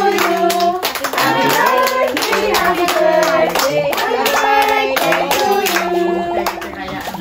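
Voices singing a birthday song, with steady clapping in time.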